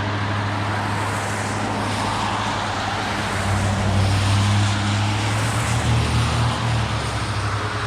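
Kyosho Blizzard 2.0 radio-controlled snowcat running on its two 1/16-scale brushless motors, tracks churning through snow, with a steady hum that grows louder for a stretch in the middle.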